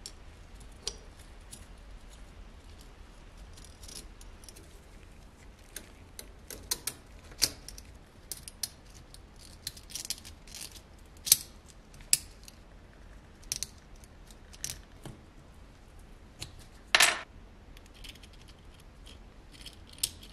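Irregular metallic clicks and ticks from the small steel parts of a wind-up tin toy's clockwork motor (coiled mainspring, gear and winding arbor) as they are handled and fitted together. Near the end comes a longer scrape, the loudest sound.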